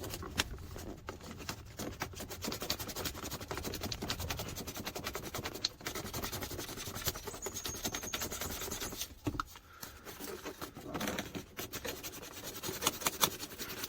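1500-grit emery paper rubbing back and forth on the plastic seatbelt guide, smoothing it to cut the friction that keeps the belt from retracting. It makes quick, rapid sanding strokes, with a short pause about nine seconds in.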